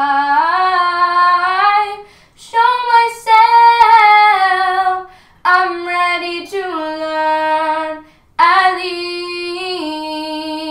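A young girl singing solo and unaccompanied: long held notes in four phrases, each ending with a brief silent breath before the next.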